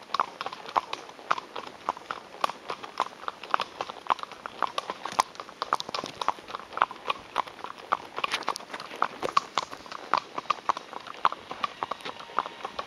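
Hooves of several ridden horses clip-clopping on an asphalt road, a steady, uneven run of sharp clicks, several a second.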